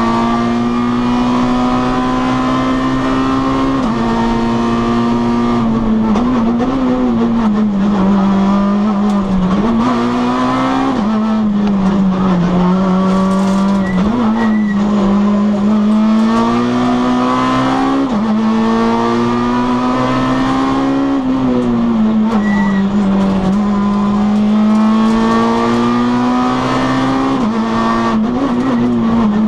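Citroën C2 R2 Max rally car's four-cylinder engine heard from inside the cabin, driven hard through the gears. Its pitch climbs steadily in each gear and drops sharply at each shift, about every two to four seconds.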